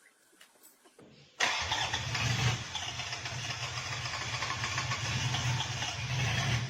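Rebuilt Toyota engine starting: a short low crank about a second in, then it catches abruptly and runs steadily at a fast idle.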